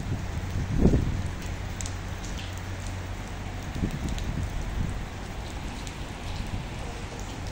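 Steady heavy rain falling on a paved walkway, with gusts of wind buffeting the microphone, the strongest about a second in.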